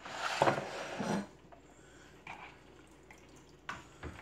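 Chopped onion being tossed into a plastic mixing bowl of potatoes and eggs, starting with a rustling scrape of about a second. A few light clicks of a spoon and dishes follow.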